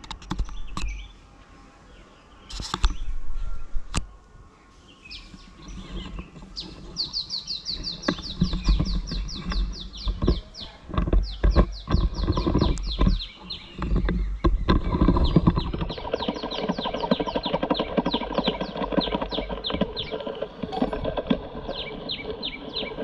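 A bird chirping in fast, evenly repeated high trills, about seven notes a second, in several long runs. Under it are scattered knocks and low thumps from handling the homemade speargun and its tangled line.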